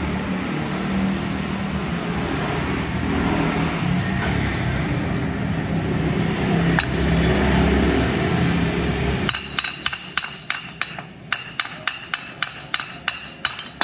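A steady low rumble runs for most of the time. About nine seconds in it gives way to a quick, even run of sharp metallic taps, about three or four a second, from metal tools and parts being worked on a steering rack.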